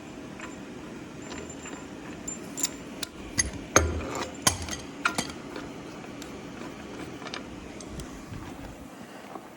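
Metal hand tools and steel parts clinking and tapping while bolts are snugged down: a string of separate sharp clinks, the loudest a few seconds in, over a steady low hum.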